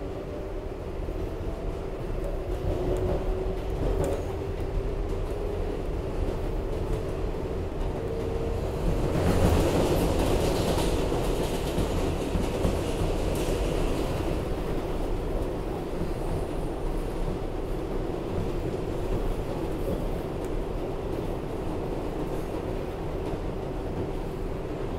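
R188 subway train running between stations, heard from inside the car: a continuous rumble of wheels on rail with a steady whine. About nine seconds in it grows louder and rougher for several seconds, then settles back.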